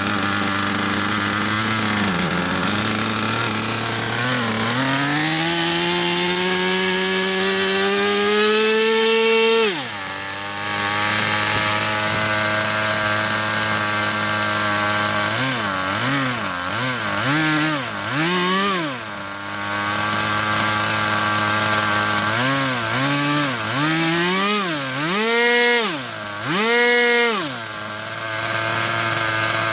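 Paramotor's small two-stroke engine running on the ground: it idles, is slowly revved up over about five seconds, then drops back sharply to idle about ten seconds in. This is followed by a series of short throttle blips, the last few the highest, as the carburettor's slow-speed setting is being checked.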